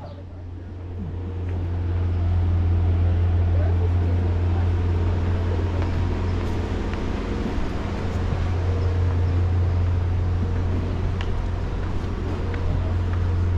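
Steady low drone of an engine running, swelling over the first two seconds and then holding steady.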